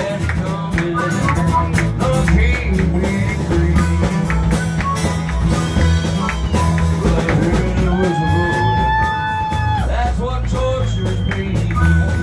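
A man singing into a microphone while strumming an acoustic-electric guitar, a live solo performance. About eight seconds in he holds one long note for a couple of seconds, then drops off it.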